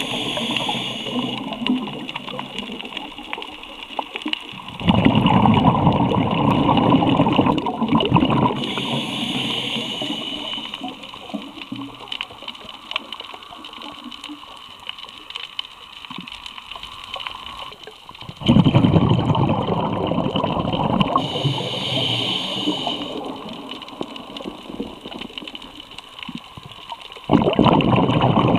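Scuba diver breathing through a regulator, heard underwater: a short hissing inhale, then a long gurgling rush of exhaled bubbles, three times over about every ten to thirteen seconds.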